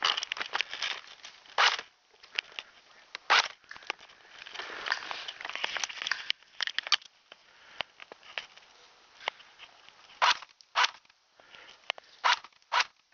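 Footsteps crunching in snow, in irregular bursts with some paired steps about half a second apart, mixed with the rustle of clothing and the handheld camera.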